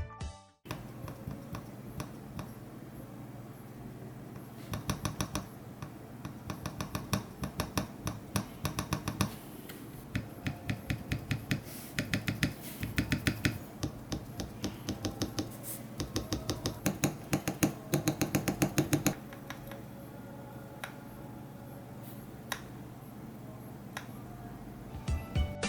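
Typing on a custom KBD67 Lite R3 mechanical keyboard with Durock POM switches, lubed and filmed, in a POM plate with KAT keycaps. The keystroke clicks come in quick bursts of several a second, with only scattered keystrokes in a lull about the first four seconds and again near the end.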